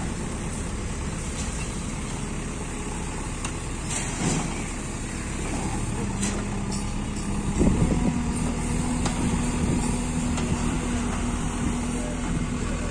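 Diesel engines of a JCB 3DX backhoe loader and a Mahindra 585 tractor running together, with a short knock about 4 seconds in. About 7.5 seconds in, an engine revs up under load and holds a higher steady note as the backhoe's arm lifts the stuck, loaded trolley.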